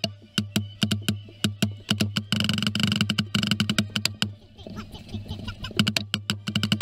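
Marching snare drum played right at the microphone, rapid sharp stick strokes in rhythmic runs over a marching band's brass holding sustained chords. The brass drops away for a moment past the middle, leaving lighter drum strokes, then comes back in.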